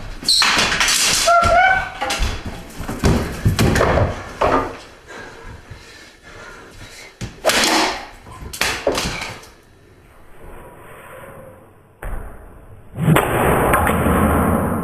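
A series of loud bangs and thumps from a scuffle, with a short rising squeal about a second and a half in. Three more sharp thumps come after a pause, and a loud steady rushing noise starts near the end.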